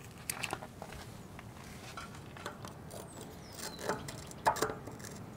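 Small clicks, taps and scrapes as a metal bearing buddy is handled and test-fitted against a boat trailer's wheel hub. The loudest knocks come about four and a half seconds in.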